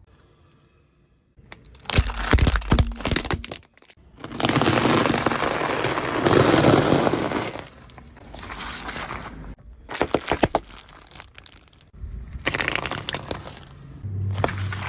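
Brittle objects cracking and breaking as they are crushed under a car tyre. There are several separate bursts of sharp cracks, and a longer stretch of steady crunching a few seconds in.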